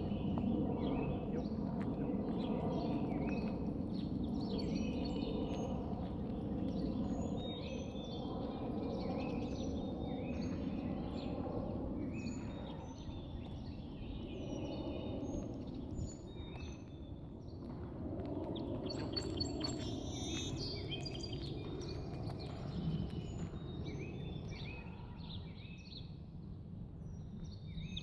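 Wild birds chirping and singing over a steady low rumble of outdoor background noise.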